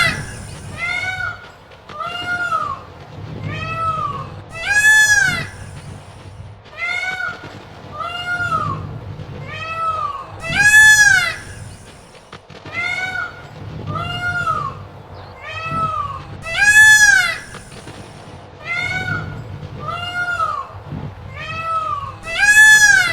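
Peacock calling over and over: short wailing calls that rise and fall in pitch, about one a second, with a louder, longer call about every six seconds.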